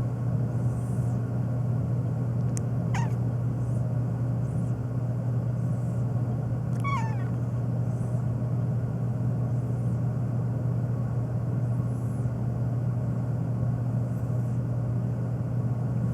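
Domestic cat giving two short meows, each falling in pitch, about three and seven seconds in, over a steady low hum.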